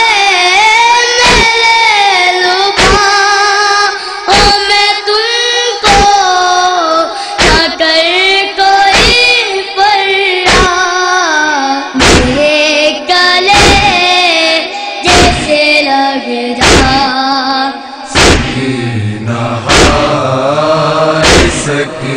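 Two boys singing an Urdu noha (Shia lament) in high voices, with a chest-beating (matam) thump about every second and a half keeping the rhythm. Lower voices join in a chant about 18 seconds in.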